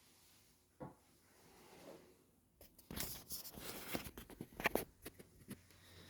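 Handling noises of a PC case being opened: a short knock early on, then from about two and a half seconds in a run of light clicks, rubs and scrapes as the side panel is taken off.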